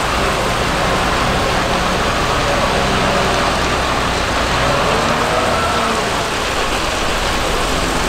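Hidromek HMK 640 wheel loader driving, its diesel engine running steadily with a faint whine that rises and falls in pitch, over a steady hiss of noise.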